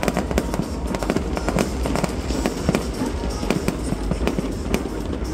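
Aerial fireworks bursting overhead: a dense, irregular run of bangs and crackles, several a second.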